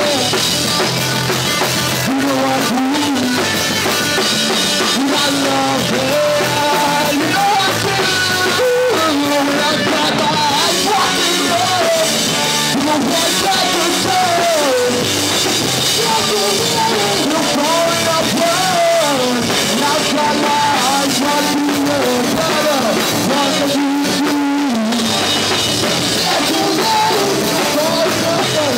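Live rock band playing a loud, driving song: drum kit, distorted electric guitars and bass, with a vocalist singing over them.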